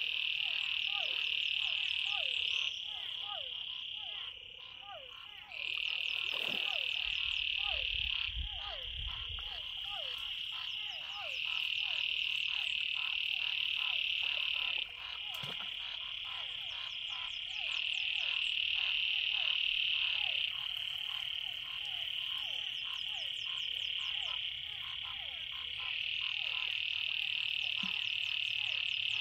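Chorus of frogs calling from a rain-filled pond: a loud high trill that comes and goes in spells of a few seconds, over many short repeated calls, about two a second.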